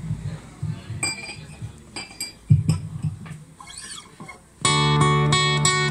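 Acoustic guitar: a few scattered soft plucks and knocks, then about two-thirds of the way through, strummed chords start up, loud and rhythmic at about three strokes a second, the opening of a song.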